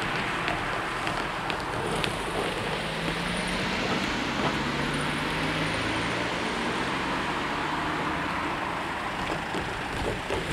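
Road traffic: cars and a delivery van driving by, with a steady wash of engine and tyre noise.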